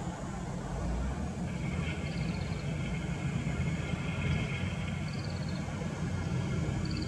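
Nissan Diesel dump truck's diesel engine running at low revs as the truck manoeuvres, a steady low rumble. A steady higher-pitched tone sounds over it for about three seconds in the middle, and short high chirps come three times, about three seconds apart.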